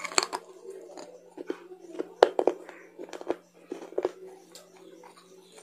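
Close-up mouth sounds of someone chewing crunchy food: separate sharp crunches and clicks, the loudest a pair about two seconds in.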